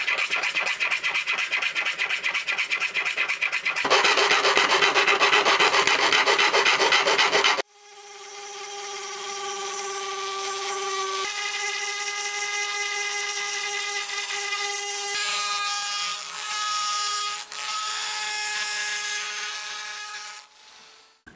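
A file rasping in quick strokes on the rough cut edge of a metal sierra cup lid, smoothing it, louder from about four seconds in. About eight seconds in it gives way to a small rotary tool's steady motor whine as its bit grinds the opening.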